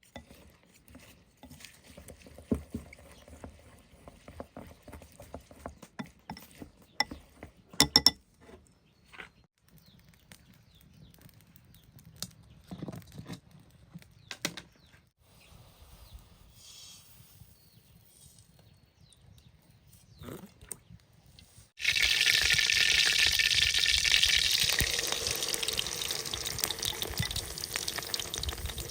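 Light scattered knocks and clicks of handling, the loudest two close together about eight seconds in. About three-quarters of the way through, water suddenly starts pouring and keeps running steadily.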